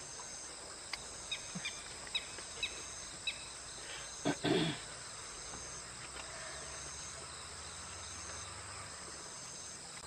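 Insects trilling steadily in the background. About a second in, a small bird gives a run of short, quick, descending chirps. A brief loud double knock and rustle comes near the middle.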